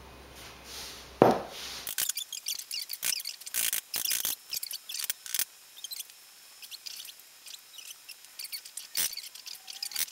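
Spatula scraping and tapping sticky cookie dough off a stand mixer's paddle beater into the mixing bowl: a string of small, irregular clicks and scrapes, with one sharp knock about a second in.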